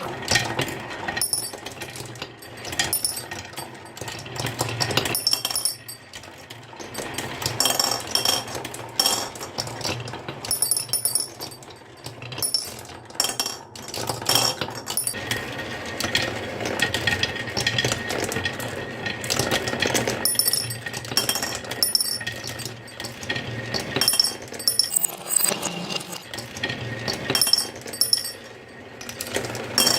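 Marbles rolling and clattering down a marble run: a continuous rapid rattle broken by frequent bright clinks as marbles knock against the track and each other.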